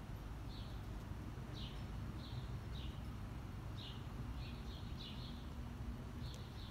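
A small bird chirping over and over, short high chirps coming about once or twice a second, over a steady low rumble.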